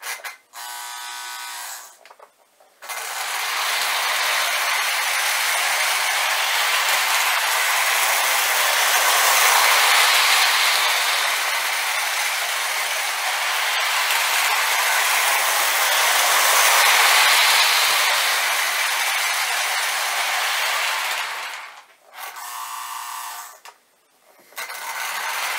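Lionel die-cast Hudson model steam locomotive running on three-rail O-gauge track, its motor and gearing whirring and its wheels rattling on the rails in a steady mechanical clatter that swells and fades a little as it circles. The clatter drops out briefly near the start and near the end, with short stretches of a steady hum between.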